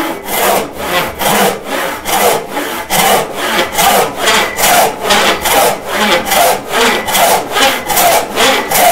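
Frame saw ripping down into the edge of a board to resaw it, with steady back-and-forth strokes about three a second.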